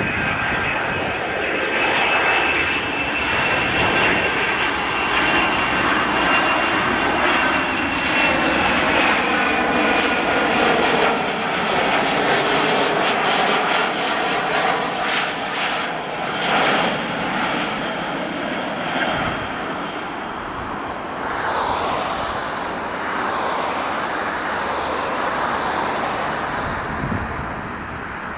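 Boeing 737 twin turbofan jet engines on final approach, passing overhead: a steady roar with a high whine that slowly sinks in pitch as the jet goes by, loudest about halfway through, then easing off as it moves away.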